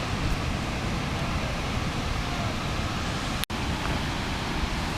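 Steady rushing of wind on the microphone mixed with ocean surf. The sound cuts out for an instant about three and a half seconds in.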